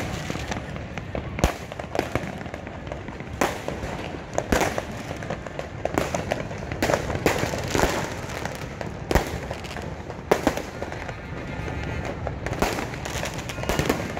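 New Year's fireworks going off overhead: a dozen or so sharp bangs at uneven intervals over a steady background din.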